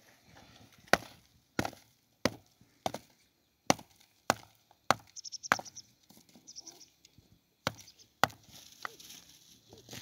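Wood being chopped: about ten sharp, separate blows roughly every 0.6 seconds, with a pause of about two seconds before the last few.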